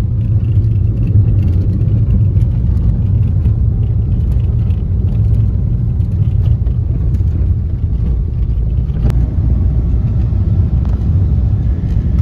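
Steady low rumble of a car driving over an unpaved farm track, heard from inside the cabin, with a single sharp click about nine seconds in.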